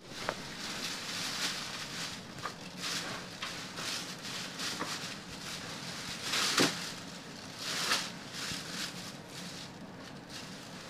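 Thin plastic garbage bag crinkling and rustling in irregular bursts as a pet monkey pulls and picks at it with its hands. The loudest crinkle comes about six and a half seconds in.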